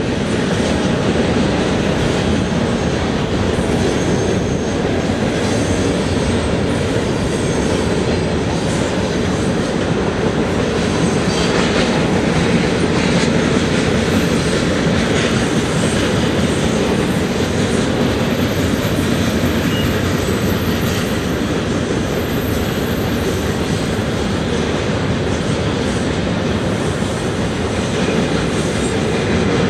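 Freight train of autorack cars rolling past: a steady, unbroken rumble of steel wheels on the rails as the string of cars goes by.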